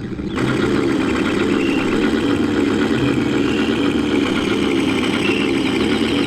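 Tank engine sound running steadily: a loud, even engine rumble with a slow wobble, starting just after the beginning.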